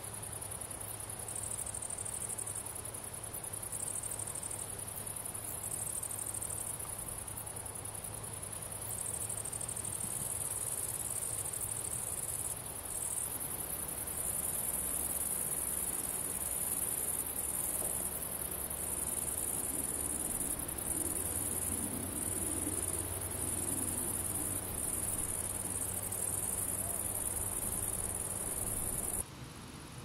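Grasshoppers stridulating in a meadow: a dense, high-pitched chorus that swells and drops back in phrases of a second or two, with a faint steady low hum underneath. It cuts off abruptly near the end.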